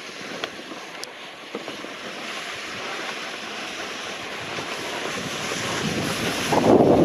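Wind rushing over the microphone, with skis hissing on packed snow as they glide along a groomed track. It grows steadily louder and swells into heavy buffeting near the end.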